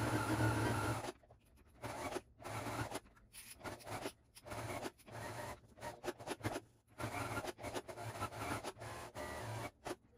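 Domestic sewing machine stitching in a run of short stop-start bursts, each about a second long, the motor humming and the needle rattling fast, as free-motion stitching draws lines on fabric.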